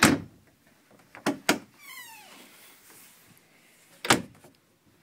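Wooden RV cabinet doors being opened and shut: a sharp knock at the start, two quick clicks about a second later, a short falling squeak, and another sharp click about four seconds in.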